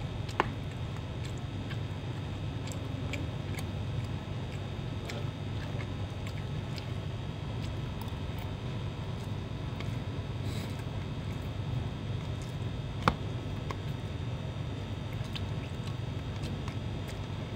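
A person eating: faint chewing and occasional clicks of a metal spoon against a plastic food container over a steady low hum, with one sharper click about 13 seconds in.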